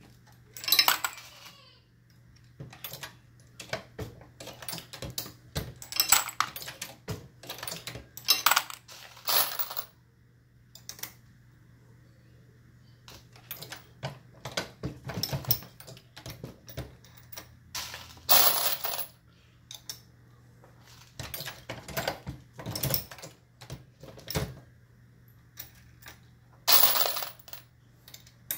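Dillon RL550B progressive reloading press being cycled by hand while loading .223: irregular metallic clanks and clicks from the handle stroke and the press, with brass cartridge cases clinking. There are a couple of short pauses.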